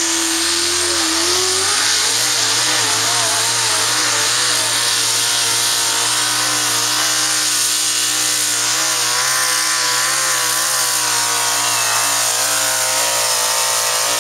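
Economy hot rod pulling tractor's engine running at full throttle under load as it drags the pulling sled down the track. Its pitch rises over the first couple of seconds, then holds high with a slight waver.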